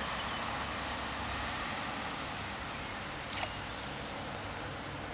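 Steady outdoor background noise with light water sounds as a pike is held in the shallows by hand for release, and one short splash about three seconds in.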